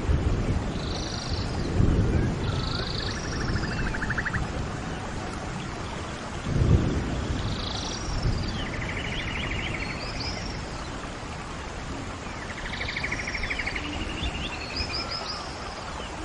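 Songbirds singing: short, repeated upswept calls and rapid buzzy trills over a steady low rushing background.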